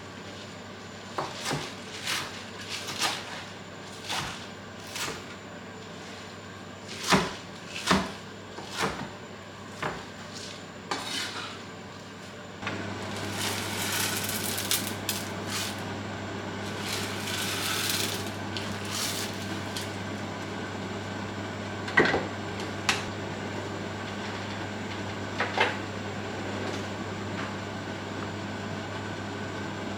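Kitchen work: scattered knocks and clinks of utensils against dishes and pots. About 13 seconds in, a steady hum with a hiss comes on, and a few more knocks sound over it.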